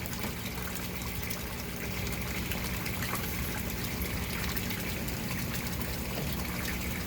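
Water trickling and pouring steadily into an aquaponics fish tank, with a low steady hum underneath.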